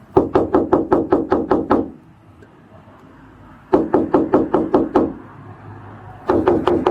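Rapid knocking on a door: three bouts of quick, even blows, about six or seven a second, the second starting near the middle and the third near the end.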